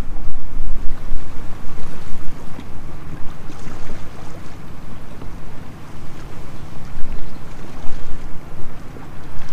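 Wind buffeting the microphone: a loud, gusting low rumble that rises and falls throughout.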